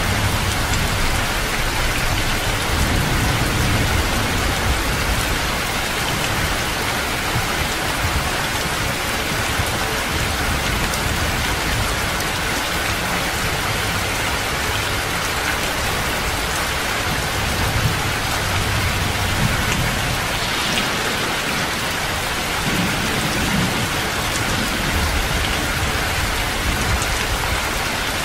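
Heavy rain pouring steadily, with low rumbles of thunder swelling up a few times.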